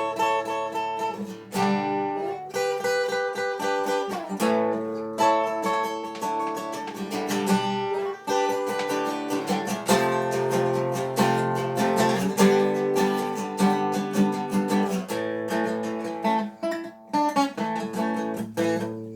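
Solo acoustic guitar playing an instrumental intro, strummed and picked chords ringing on, with a few sliding chord changes.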